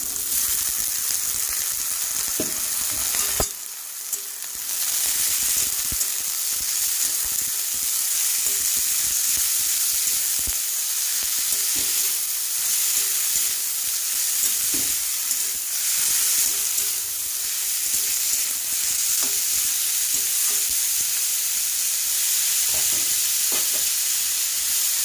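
Julienned raw potatoes sizzling in hot oil in a metal kadai, just added to the fried onion, garlic and chilli, with a metal spatula scraping and knocking against the pan as they are stirred.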